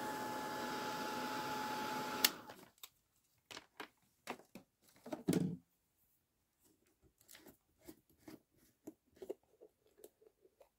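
Craft heat tool blowing hot air with a steady blowing noise and a faint steady tone, switched off with a sharp click about two seconds in. Afterwards come light scattered taps and clicks of objects being handled and set down on the desk, with one duller knock about five seconds in.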